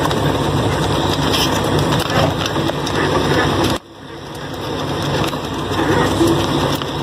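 Truck cab noise while driving over a rough, unpaved dirt road: the engine drones under a constant rattle and clatter of the cab and load over the bumps. The sound cuts out abruptly about four seconds in and swells back up over the next couple of seconds.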